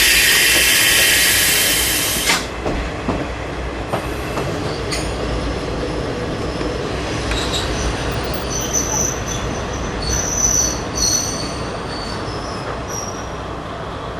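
KiHa 20 diesel railcar slowing as it runs into a station. A loud hiss lasts about two seconds at the start, then several short, high-pitched squeals from the wheels as it brakes, under a steady running rumble.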